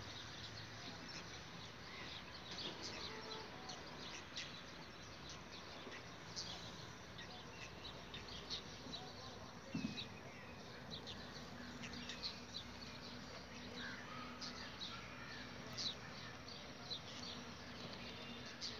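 Many small birds chirping, short high calls scattered throughout over a steady faint outdoor background with a low hum, and one soft knock about ten seconds in.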